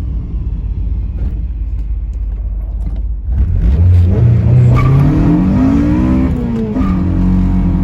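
Honda K24 four-cylinder engine, swapped into a Toyota MR2, rumbling low, then climbing steeply in revs a little over three seconds in as the car launches and accelerates hard. There is a brief break near the end, like a gear change, after which the engine pulls on at high revs.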